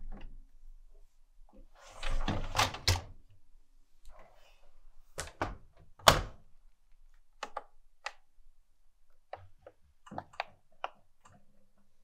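Bosch Serie 4 dishwasher being shut and started. The wire basket rattles as it slides in, the door closes with two sharp clacks, the louder one about six seconds in, and then the control-panel buttons give a string of light clicks as the Machine Care programme is set.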